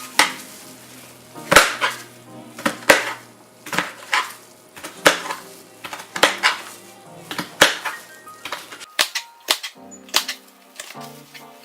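Knife slicing through jalapeño strips and knocking on a cutting board, a sharp chop about once a second.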